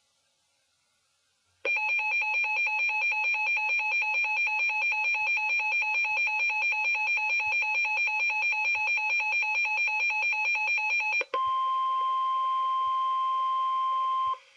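Weather alert radio's electronic alarm beeping rapidly, about six beeps a second, for nearly ten seconds. It then switches to the NOAA Weather Radio 1050 Hz warning alarm tone, one steady tone lasting about three seconds, which signals that a warning message follows.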